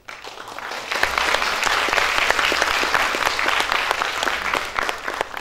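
Audience applauding: clapping breaks out suddenly, swells to full within about a second, holds steady, then begins to die away near the end.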